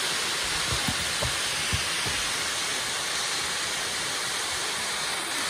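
Waterfall rushing: a steady, even hiss of falling water, with a few soft low bumps between about half a second and two seconds in.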